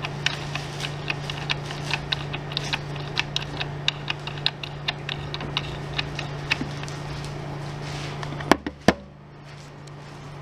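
Small sharp plastic clicks and taps, roughly three a second, from a Handy Stitch handheld mini sewing machine being handled, over a steady low hum. Two louder clicks come near the end, and the hum stops with them.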